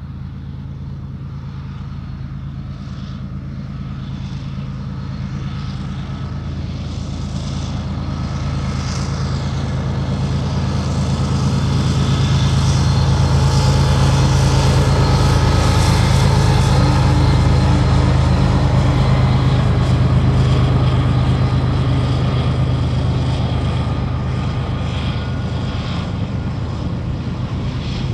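A lashup of five Union Pacific diesel-electric locomotives (GE ES44ACs, an EMD SD70AH and a GE AC44CCTE) passing, their prime movers running with a steady low hum. It grows louder as the units approach, is loudest about halfway through, and eases as the last unit goes by.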